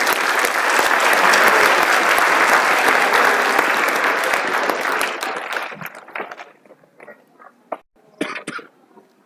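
Large congregation applauding, a dense clatter of clapping that fades away after about six seconds, with a few last scattered sounds near the end.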